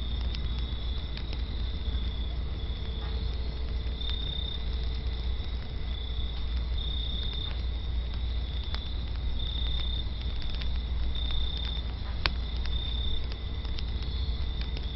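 A steady, high insect trill that swells in short pulses every second or so, with a few sharp, sparse crackles from the wood fire over a constant low rumble.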